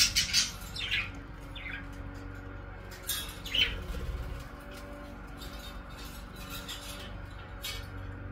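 Budgerigar chirps: several short calls, each falling in pitch, mostly in the first four seconds, followed by soft rustling and light clicks.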